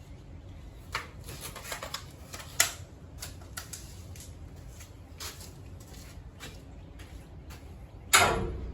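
Scattered clicks and knocks of tools and parts being handled during truck suspension work, with a sharper knock a little over two and a half seconds in and a loud clank that rings briefly near the end.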